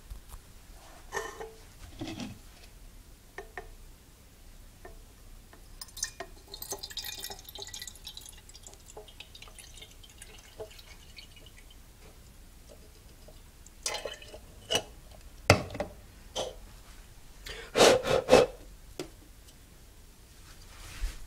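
Water poured from a plastic measuring jug into an opened aluminium drink can, trickling and dripping. This is followed by a series of sharp knocks and clatter as the can is handled, the loudest near the end.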